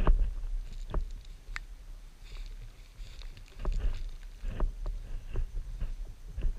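Cast net being gathered and loaded for a throw: its lead weights clack now and then and the mesh rustles, in scattered short clicks over a steady low rumble.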